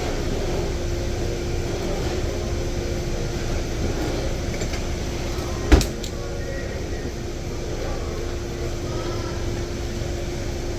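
HVAC equipment running with a steady hum and low rumble, and a single sharp knock or clank about halfway through.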